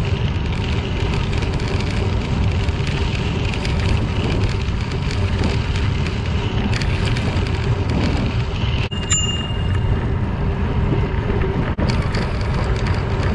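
Bicycle tyres rolling over a crushed limestone trail, a steady low rumble, with a single ring of a bicycle bell about nine seconds in.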